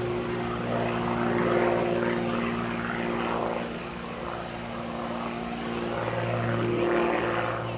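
Aviat Pitts S-2C aerobatic biplane's engine and propeller droning as it flies its routine, swelling and fading in loudness several times.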